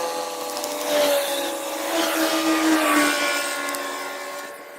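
A motor's steady hum with several held tones, dropping slightly in pitch and fading from about three seconds in.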